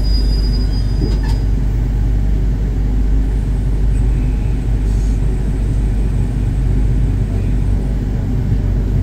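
Diesel train engine idling steadily, heard from inside the driver's cab while the train stands at a station: a constant low rumble with a hum.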